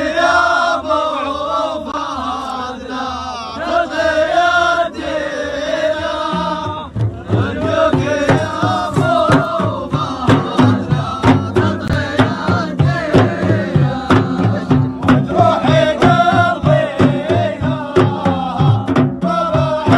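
Middle Eastern chanted singing; about seven seconds in, a steady drum beat comes in under the voices.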